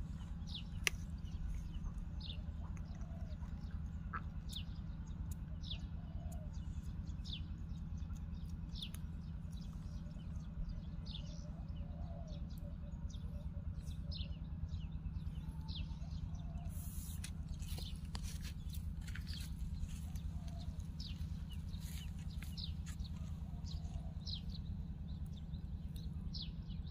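Birds chirping over and over, short high falling chirps about once or twice a second, over a steady low background rumble.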